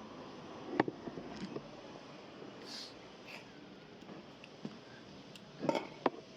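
Hand work on the parts of a hydraulic pump: a few sharp knocks and clicks of metal parts being handled, with two short hisses in the middle, over a steady low room noise.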